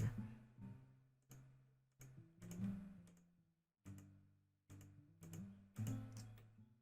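Sparse low musical notes struck one at a time, about seven in all, each ringing and fading out before the next. The sound cuts off abruptly at the end.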